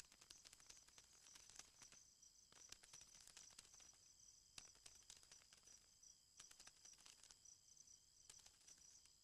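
Faint, high-pitched steady trill with a fine pulsing texture, with scattered light ticks and crackles.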